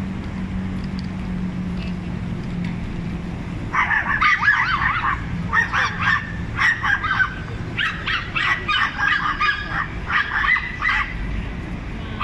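Several small dogs yapping in quick, high-pitched barks, taking turns. The barking starts about four seconds in and comes in rapid bursts, over a low steady background hum.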